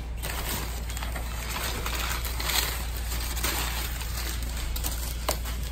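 Crumpled brown kraft packing paper crinkling and rustling as hands dig through it in a cardboard box, with a few sharper crackles.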